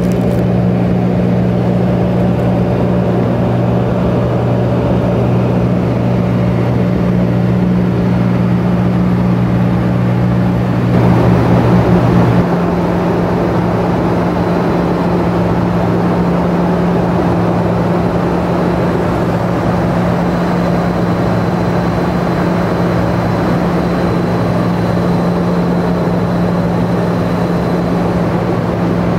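Steady cabin drone of a Tupolev Tu-134B in cruise: its tail-mounted Soloviev D-30 turbofans heard as two low, even hums under a broad wash of noise. About eleven seconds in the sound shifts: the noise turns brighter and the lower hum breaks up.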